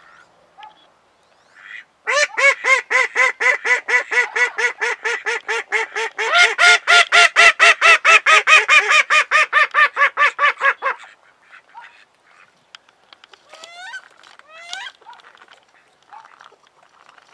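Ducks calling loudly in a fast run of repeated quacking calls, about four to five a second for roughly nine seconds, with a second bird joining partway through. A few quieter rising, squealing calls follow near the end.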